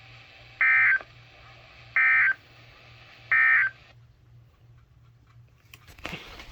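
Emergency Alert System end-of-message signal: three short bursts of digital data tones, about a second and a half apart, played over a radio to mark the end of the alert message. The radio's background hiss cuts off about four seconds in, and there is a brief handling noise near the end.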